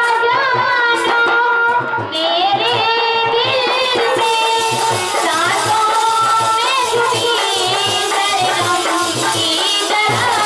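A woman singing a Bundeli folk song through a microphone, with pitch that wavers and glides, over a harmonium and a steady drum beat.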